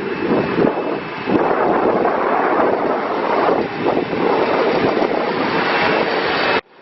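2014 Bobcat S510 skid steer loader's diesel engine running loud and steady, with some wind on the microphone. It cuts off suddenly near the end.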